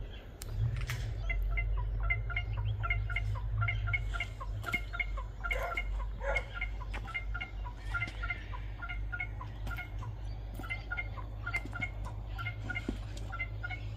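Birds chirping, short pitched calls repeated several times a second, over a steady low rumble, with a few sharp cracks.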